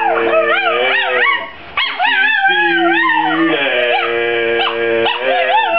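Chihuahua howling along with a man's singing: high, wavering howls that rise and fall in pitch over his held notes, with a short break about a second and a half in.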